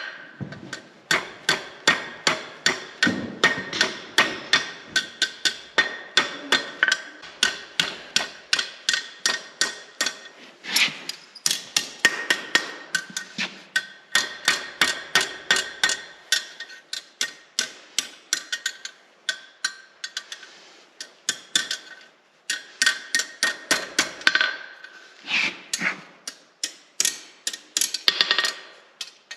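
Blacksmith's rounding hammer striking a hot 1/4-inch steel rod on an anvil, blow after blow, several a second, in runs broken by short pauses, each blow ringing.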